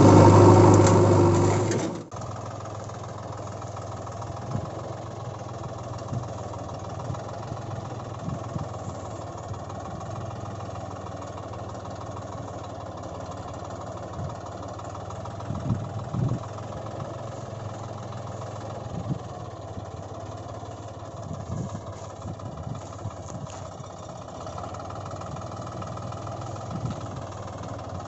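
A steady low engine drone, like an idling vehicle engine, with scattered light knocks. A louder passage cuts off sharply about two seconds in, and the drone continues at a lower level after it.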